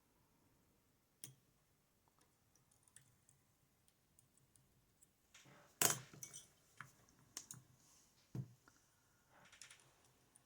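Faint, scattered metallic clicks and scrapes of a lock pick probing the pin stacks of a West 917 high-pin-count lock, with the loudest cluster about six seconds in.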